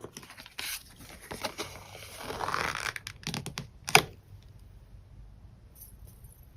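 Packs of scrapbook paper and sticker sheets being handled: light taps and rustling, with a longer rustle of paper sliding about two to three seconds in and one sharp tap about four seconds in.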